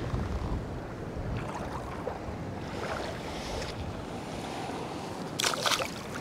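Steady wind on the microphone over small waves lapping at the shore, then near the end a short splash as a small channel catfish is dropped back into shallow water.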